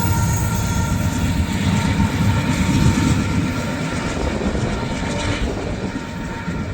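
Freight train rumbling away after its last car has passed, the sound slowly fading as it recedes. A faint high ringing from the wheels dies out within the first second.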